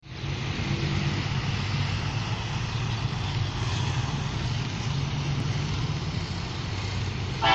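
Steady low drone of an approaching diesel locomotive's engine, heard from a distance before the horn sounds.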